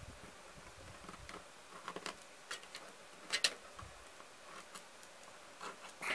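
Ballpoint pen scratching and scoring thin aluminium drink-can foil, tracing round a small disc: faint scratching with a few light clicks, the loudest about three and a half seconds in.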